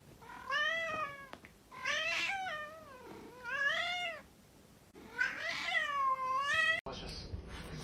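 Domestic cat meowing: four drawn-out meows with short gaps between them, each swelling and bending in pitch.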